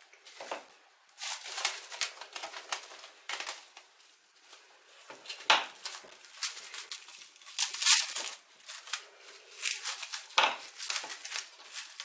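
Plastic cling film crinkling and rustling as a sheet is pulled from the roll and spread out by hand, irregular with a few sharper crackles.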